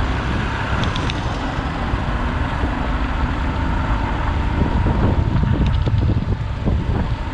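Wind rushing and buffeting over the microphone while riding on a road, a steady loud rumble that thickens about five seconds in.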